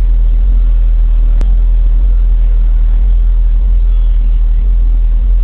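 Very deep, loud bass from a car stereo driving sixteen 12-inch subwoofers, a steady low rumble with the low notes shifting underneath. A single short click about a second and a half in.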